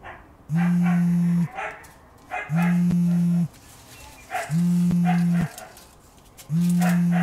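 Mobile phone ringing with a low, steady buzzing tone. Each buzz lasts about a second and repeats every two seconds, four times.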